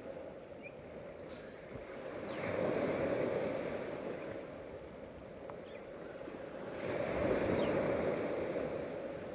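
Sea waves breaking and washing up the beach, swelling twice about four to five seconds apart and ebbing in between.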